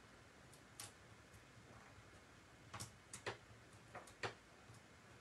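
Near silence broken by a few faint, irregular clicks and taps as fingers handle small die-cut paper pieces on a desk top.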